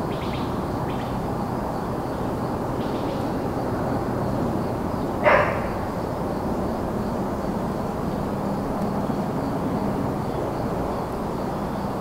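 Steady rush of distant highway traffic under a faint high cricket trill, with a few faint bird chirps near the start. A single short dog bark about five seconds in is the loudest sound.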